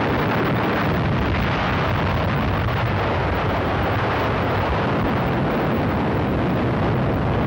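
Steady, dense rumbling roar of battle noise on an old newsreel soundtrack: a continuous wash with no separate shots or blasts standing out.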